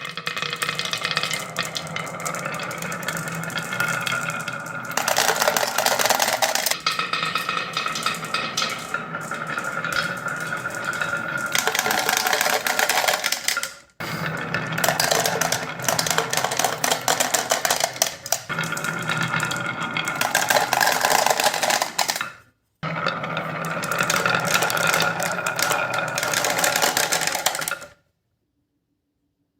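Marbles rolling and clattering down a wooden marble run of HABA wave-slope track and Cuboro blocks: a continuous rattle of many small clicks over a rolling, ringing hum. Twice the sound breaks off briefly, and it falls silent near the end.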